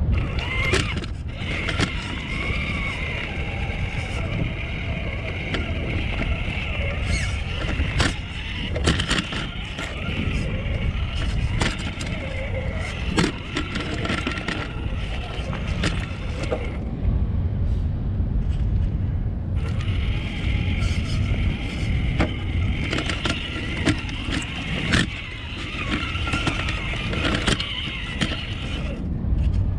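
Electric motor and gears of a radio-controlled rock crawler whining as it crawls over shoreline stones, the pitch wavering with the throttle, with frequent clicks and knocks of tyres and chassis on rock. The whine stops for a few seconds a little past the middle, then picks up again.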